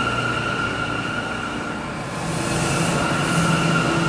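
New York City subway train moving along the platform, with a steady high-pitched whine and a pulsing rumble of the cars. About halfway through come two short bursts of high hiss.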